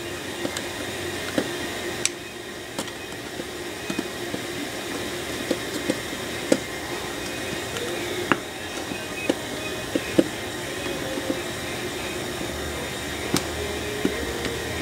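Scattered small clicks and taps of a screwdriver and metal parts as small screws are driven into a Corvair distributor, over a steady background hum.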